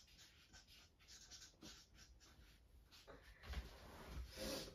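Felt-tip marker writing on flip chart paper: faint scratchy strokes, a few short ones at first, then a louder run of strokes near the end.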